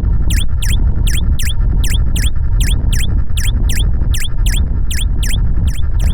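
Rapid, evenly spaced high chirps, about three or four a second, each falling in pitch, over a steady low rumble: a cartoon running sound effect.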